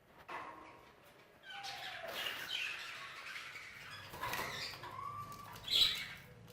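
Budgerigars chirping and squawking amid rustling and wing movement, with a sharp loud call near the end.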